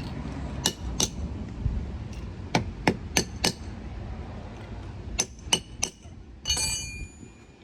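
Sharp metallic taps, about nine strikes in small groups of two, four and three, then a brief clatter that rings out near the end: a hammer tapping sway-bar link hardware to seat a rubber bushing.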